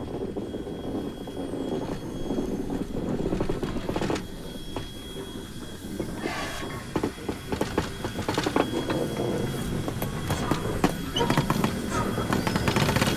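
Narrow-gauge K-36 steam locomotive and tender rolling slowly by at low speed: a steady rumble of running gear with rod clanks and wheel clicks on the rail, which grow denser and louder from about halfway through. A faint high steady whine runs beneath.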